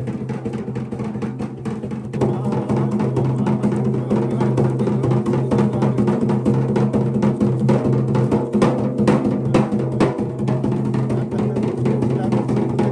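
Double-headed laced hand drum beaten in a fast, dense rhythm over a steady low drone, getting louder about two seconds in.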